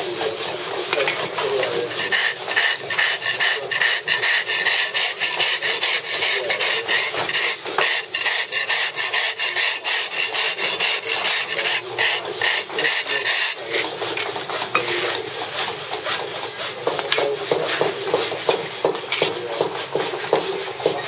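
Mason's steel drag scraped back and forth over Bath stone in quick repeated rasping strokes, dressing the moulding down to its marked line. The strokes are strongest for the first half, then lighter and softer toward the end.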